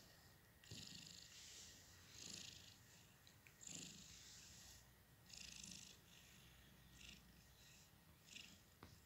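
Domestic cat purring faintly while being stroked, with soft rustles of a hand moving through its fur every second or so.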